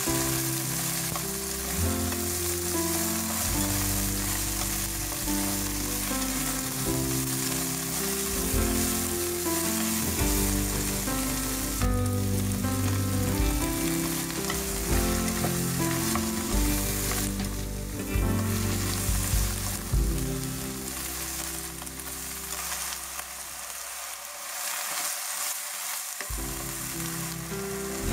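Vegetables sizzling in hot oil in a wok as they are stir-fried over high heat and tossed with chopsticks. Background music with low melodic notes plays along.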